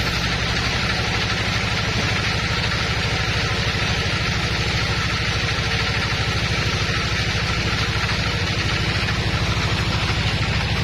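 Sawmill machinery running steadily, with a fast, even low throb under a hiss.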